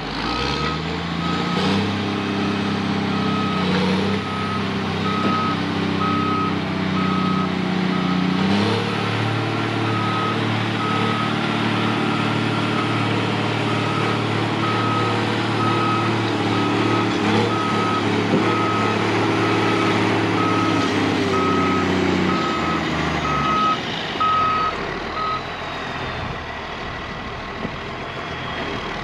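Heavy earthmoving machine's reversing alarm beeping steadily about once a second over its diesel engine working under load; the beeping stops about 25 seconds in and the engine eases off shortly before.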